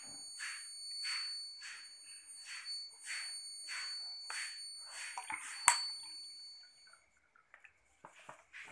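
Homemade water-level alarm's piezo buzzer sounding a steady high-pitched electronic tone as water completes its circuit, cutting off about seven seconds in. A rasping pulse repeats about twice a second throughout, with a sharp click a little before the tone stops.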